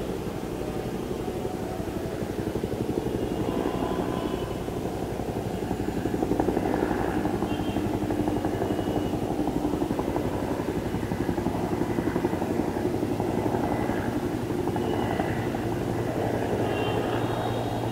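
Bell 212 helicopter flying past, its two-blade main rotor beating rapidly over a steady engine drone. The sound grows a little louder in the middle.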